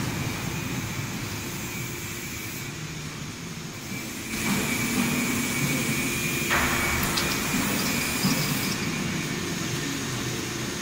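Steady low mechanical rumble of an industrial workshop, growing louder about four seconds in, with a faint thin high whine over it.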